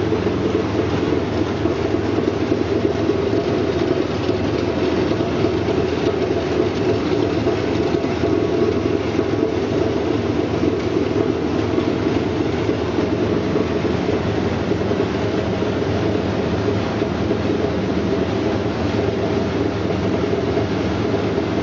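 Brush-roller vegetable washing and peeling machine running: a steady, dense rattling drone that holds unchanged throughout.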